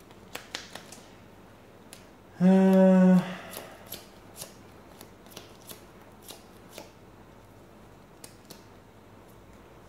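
Playing cards being handled and laid down on a table: scattered light clicks and taps of card stock. About two and a half seconds in there is a short, loud, steady hum lasting under a second.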